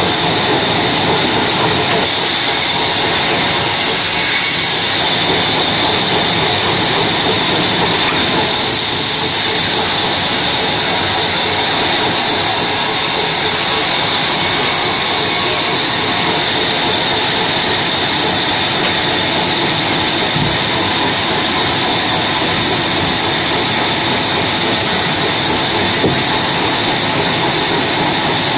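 Large sawmill band saw running steadily while a teak log is fed through its blade, an even, unbroken loud hiss of the blade cutting through wood.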